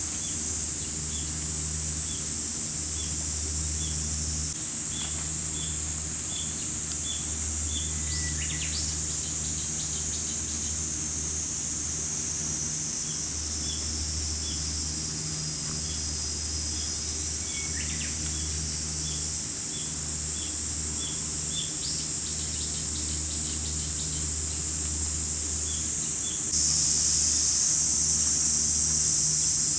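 Summer insect chorus, a steady high buzz that shifts in level twice, with a bird repeating short chirps and giving a few falling calls, over a low rumble.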